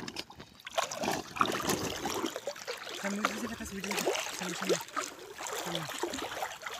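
Water sloshing and splashing around the legs of people wading through thigh-deep water: a steady run of small irregular splashes and trickles.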